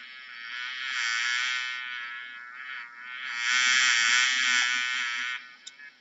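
A bee buzzing in flight, a high whining drone whose pitch wavers. It comes in two swells, the second louder, with a dip in between about two and a half seconds in.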